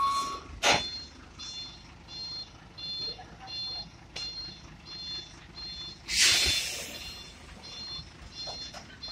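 Truck reversing alarm beeping almost twice a second, each beep a two-pitch tone, as a container truck backs its semi-trailer, with the engine rumbling low underneath. A loud burst of hiss comes about six seconds in.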